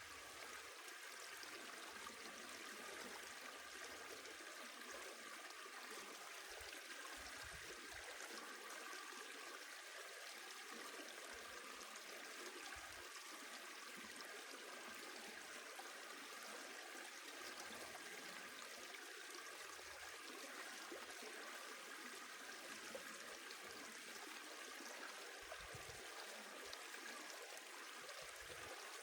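A river's flowing water: a faint, steady, even rush with no change.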